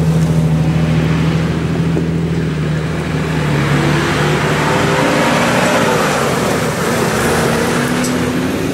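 Off-road SUV engines as the vehicles drive past one after another on a dirt track. One engine's steady note fades as it pulls away, then the next engine's pitch rises and falls as it passes, and another rises near the end.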